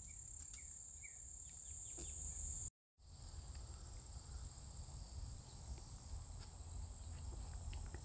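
Faint field ambience of insects trilling in a steady, high, unbroken buzz over a low rumble, with a few faint short chirps in the first second or so. The sound drops out completely for a moment just before three seconds in, then carries on.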